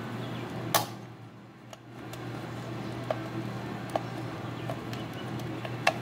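Sharp clicks and light knocks of the plastic switch handle of a Makita 2414 chop saw being handled and fitted back together during a switch repair, the loudest click less than a second in, over a steady low hum.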